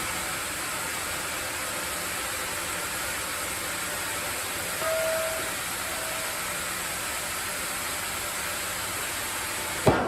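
Sawmill machinery running with a steady hiss. A short whine comes in about five seconds in, and a single sharp knock sounds just before the end.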